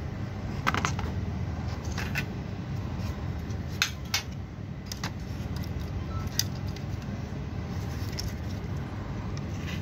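Scattered light metallic clicks and clinks, about seven in all, as a bare sheet-aluminium instrument chassis is handled and shifted on a bench, over a steady low hum.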